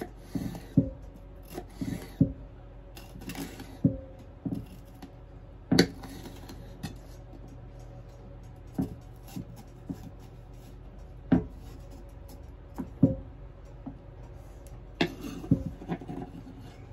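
Kitchen knife slicing a bell pepper into long strips on a bamboo cutting board: crisp cuts through the skin, each ending in a knock of the blade on the board. The cuts come quickly at first and are spaced a few seconds apart later.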